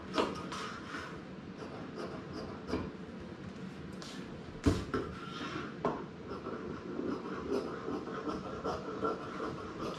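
Fabric shears cutting through fusible interfacing on a wooden table, with short snips repeating about two to three times a second in the second half. There are a few sharp knocks, the loudest a little before the midpoint, as the shears and material are handled.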